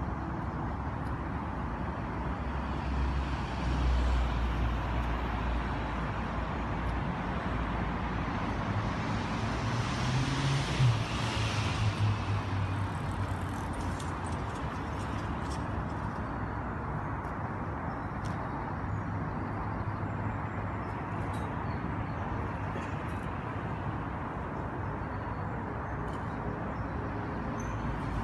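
Steady outdoor background rumble with a road vehicle passing about ten seconds in, its engine note rising as it goes by. Faint clicks follow in the second half.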